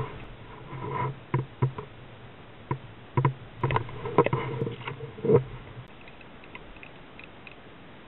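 Irregular hollow knocks and bumps on a plastic kayak while caught sunfish are handled, about a dozen strikes in the first five seconds, the loudest near the middle, then only faint ticks.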